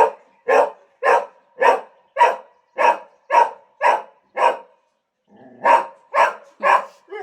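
A pet dog barking over and over, about two barks a second, with a pause of about a second just after the middle before the barking resumes.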